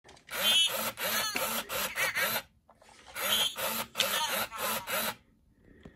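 1999 Tiger Electronics Furby babbling in its high, electronic chirping voice, in two bursts of about two seconds each, with the clicking of its internal motor running under the chatter.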